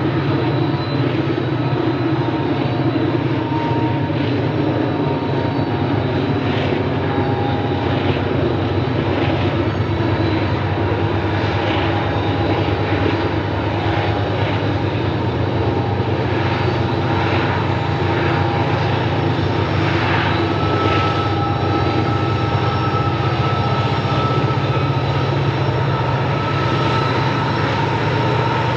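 Diesel-electric freight locomotives working as they haul a long train of hopper cars: a steady, loud engine drone with a few thin, steady higher whining tones above it.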